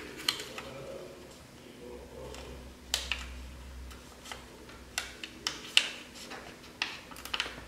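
Light, sharp clicks and taps, about a dozen at uneven intervals, as a plastic-coated wire paper clip is worked onto the edge of a notebook page.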